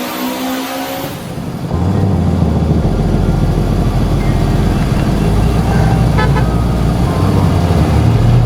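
A car engine rising in pitch as it revs, then dropping about a second in to a loud, steady, deep low rumble. A short run of high beeps comes about six seconds in.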